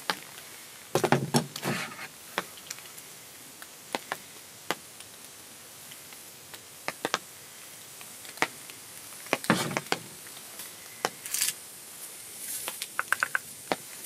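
Scattered light clicks and a few louder knocks and rustles of food prep by hand on a camp table, as ingredients are added to a bowl and a knife is set down. A brief hiss about eleven seconds in and a quick run of ticks near the end.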